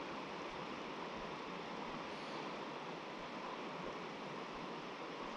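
Steady rush of a high river's current flowing past the bank.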